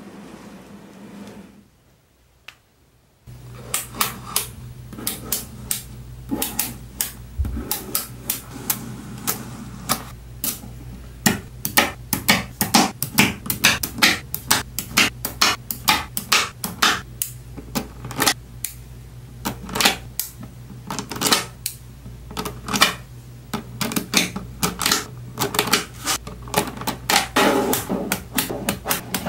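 Small neodymium magnet balls clicking sharply as they snap together and are pressed into place on a block by hand, many clicks in quick irregular succession. A steady low hum runs under them. The clicking starts about three seconds in, after a brief near silence.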